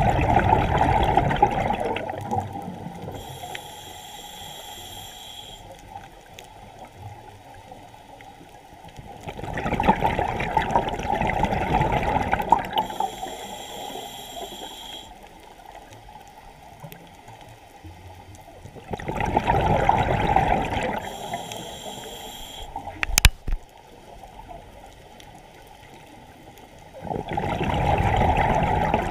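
Scuba diver breathing through a regulator underwater: four long exhalations come as loud surges of bubbles, roughly ten seconds apart. Between them, each inhalation draws a thin hiss through the regulator. A single sharp click sounds between the third and fourth breaths.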